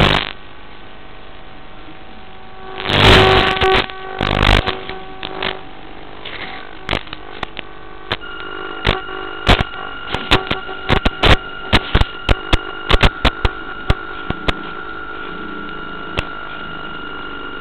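A modified RC toy fire boat running, with a steady electric hum. About eight seconds in a steady high whine sets in as its water cannon sprays. There are two loud rushes of noise about three to four and a half seconds in, and an irregular run of sharp clicks through the middle.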